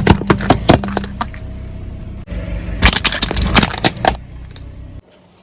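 Car tyre rolling over and crushing brittle objects: two clusters of sharp cracks and snaps over the car engine's low steady hum. The sound cuts off abruptly about two seconds in and again near the end.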